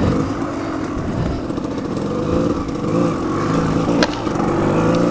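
Off-road motorcycle engine running on a trail ride, its revs rising and falling with the throttle, over rough wind and ground noise. A sharp click about four seconds in.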